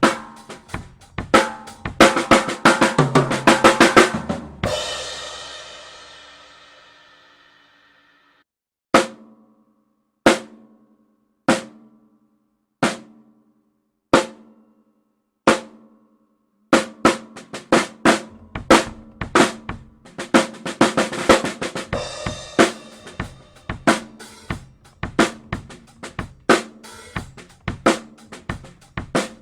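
Drum kit played through an AKG P3S dynamic microphone on the snare: fast snare-led fills end in a cymbal crash that rings out for about four seconds, then single drum hits land roughly every second and a half before the full beat with cymbals comes back.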